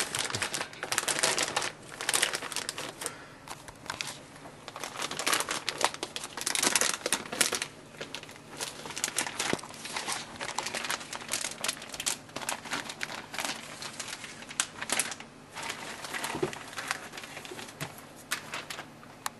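Plastic motherboard packaging crinkling and rustling, with irregular crackles throughout as the board is unwrapped from its bag.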